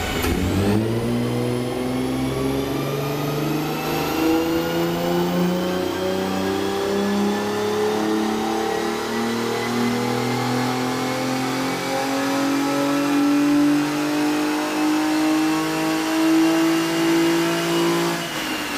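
Hyundai Genesis Coupe's engine under load on a chassis dynamometer, its pitch climbing slowly and steadily through one long pull, then backing off near the end.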